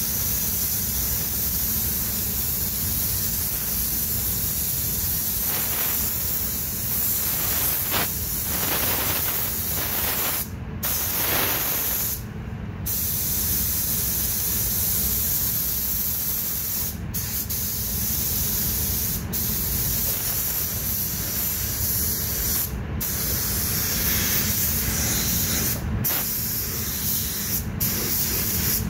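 Air spray gun hissing steadily as it lays the second coat of white ground coat for a tri-coat pearl white paint job. The hiss breaks off briefly about eight times as the trigger is let go between passes.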